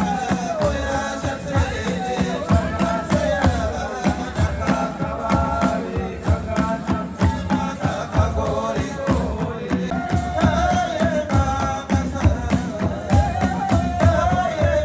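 Traditional Rwandan music played live for a dance: a wavering sung melody over a steady beat of drumming.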